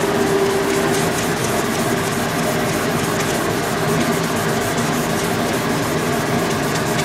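Wood lathe running with a steady hum while sandpaper is pressed by hand against the spinning wooden blank, giving a continuous rubbing hiss: the blank is being sanded smooth.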